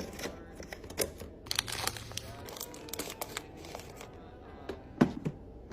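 Plastic packaging crinkling and rustling while being handled, with a series of sharp clicks and knocks; the loudest knock comes about five seconds in.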